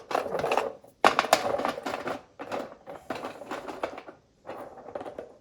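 Small stones clattering and rattling against each other and the metal burner tray as they are spread by hand over a gas fire table's burner.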